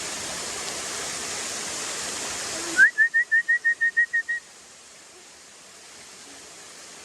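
Waterfall rushing, cut off abruptly a little under three seconds in. Then a quick run of about ten short, high whistled notes over a second and a half, the first one rising, followed by fainter water noise.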